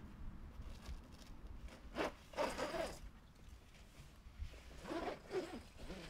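Zipper on a canvas camper-trailer awning being pulled, in two short rasping runs about two and five seconds in, as the awning is zipped onto the trailer.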